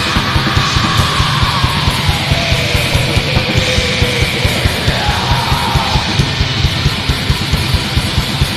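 Black metal recording: a wash of distorted guitars over fast, evenly repeating drums. Around the middle a single high line slides down and then back up.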